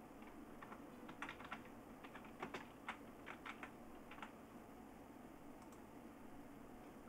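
Faint computer keyboard typing: a quick, irregular run of key clicks that stops about four seconds in, leaving only faint room hiss.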